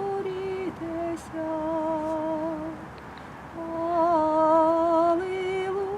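A woman singing solo in a slow Ukrainian sacred folk song, holding long notes with vibrato. There is a short break about three seconds in, then a louder sustained note that steps up in pitch near the end.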